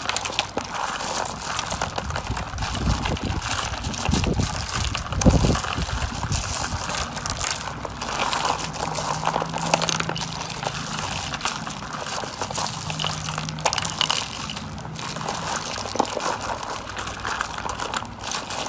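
Hands stirring and scooping through a heap of plastic dice, small plastic toys, foil-wrapped chocolates and folded paper stars: a dense, continuous clattering of plastic pieces with crinkling of foil. A few dull bumps stand out around four to five seconds in.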